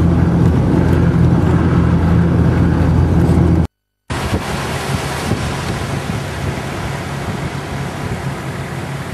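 4WD engine droning steadily, heard from inside the cabin while driving on beach sand. About four seconds in the sound cuts out abruptly, and a steady rush of wind and surf follows, with a lower engine hum under it.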